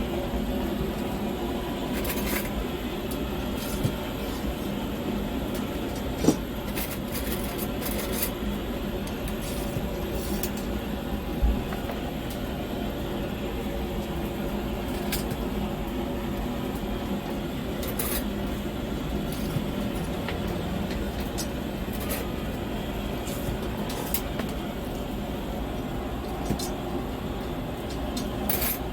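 Steady low mechanical hum with scattered light clicks, and two sharper knocks about six and eleven seconds in.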